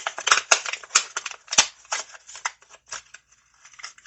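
A Hot Wheels blister package being opened by hand: a quick, irregular run of plastic and cardboard crackles and snaps, dense at first and thinning out toward the end.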